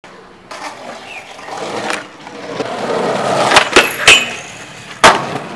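Skateboard wheels rolling on concrete, growing louder as the board approaches. Sharp clacks at about three and a half seconds mark the tail pop and the trucks hitting a metal rail, followed by a brief high-pitched metal-on-metal grind. The board then lands with one loud clack about five seconds in.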